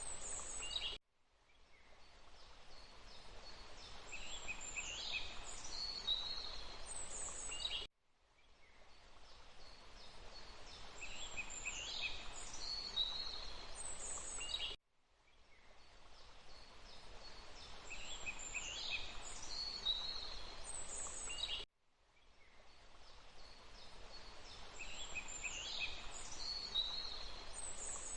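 Forest ambience: birds chirping and calling over a steady hiss. It is a short loop of about seven seconds that cuts out suddenly and fades back in, four times.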